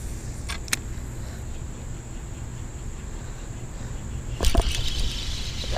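Summer insects droning in a steady high tone over a low rumble. About four and a half seconds in comes a sudden loud whoosh, the swish of a spinning rod casting a small topwater lure.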